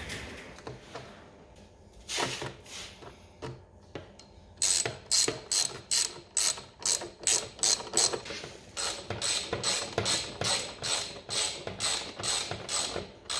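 Hand ratchet wrench tightening bolts: a few scattered knocks, then from about four and a half seconds in a steady run of sharp ratcheting clicks, about two a second, as the handle is swung back and forth.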